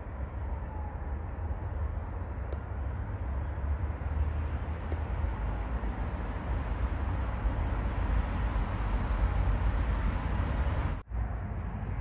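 Steady outdoor background rumble and hiss, deepest at the low end, with no single event standing out. It cuts out for an instant about a second before the end.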